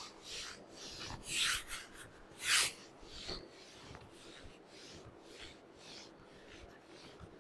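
Shirt fabric and a small spiky massage ball rubbing against an exercise mat as a body rolls over the ball, in a few short rasping rubs, the two loudest about one and a half and two and a half seconds in.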